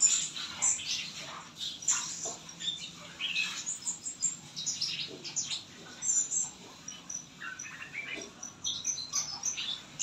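Chestnut-capped thrush (anis kembang) singing loudly and busily: a rapid, varied run of short, high, clear notes and chirps with only brief pauses.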